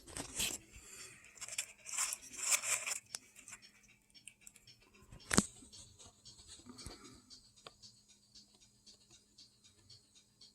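Rustling and scraping handling noise for about three seconds, then one sharp click a little after five seconds in, followed by faint scattered ticks.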